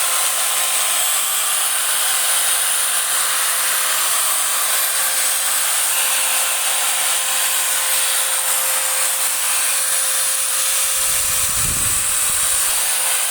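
Hikoki angle grinder running steadily at no load, its motor giving an even whine with a high hiss; the motor sound is smooth, the sign of a successful repair. A brief low rumble comes about eleven seconds in.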